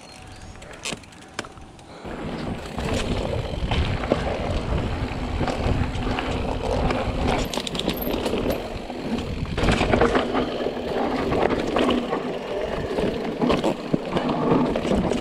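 Mountain bike riding down a dirt singletrack: tyres rolling over dirt and roots, with frequent rattles and knocks from the bike and wind buffeting the camera's microphone. Quieter for the first two seconds, then loud and rough once the bike gets up to speed.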